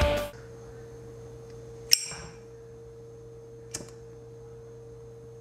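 Zippo lighter's metal case clicking: a sharp metallic click with a brief ring about two seconds in, then a fainter click a couple of seconds later, over a steady low hum.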